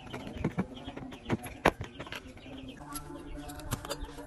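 A few short sharp clicks and taps from hands handling small tools and a metal tin of glue over a speaker cone, the loudest two close together in the first half, over a continuous pitched sound in the background.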